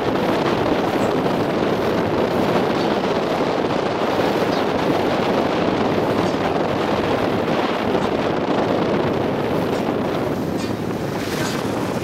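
Steady rush of water and wind from a boat under way, with wind buffeting the microphone, a little brighter hiss near the end.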